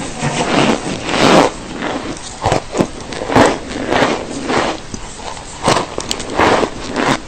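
Close-miked ASMR crunching of a brittle, chalky or icy substance, with loud irregular crunches about twice a second.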